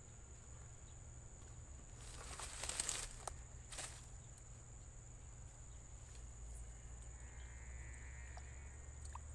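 Quiet outdoor ambience with a steady high insect drone. A brief rustle comes about two to three seconds in, and a short scrape near four seconds.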